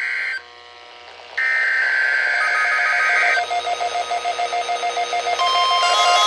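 Weather radio emergency alert data bursts (the SAME header): a harsh buzzing burst ends about half a second in, and after a one-second pause a second burst lasts about two seconds. Then a fast-pulsing beeping alarm starts, and near the end it is joined by a steady, single-pitched warning alarm tone.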